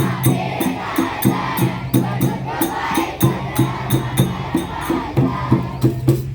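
Children's song music with a steady, quick beat of about three strikes a second over a bass line, with a chorus of group voices in the background.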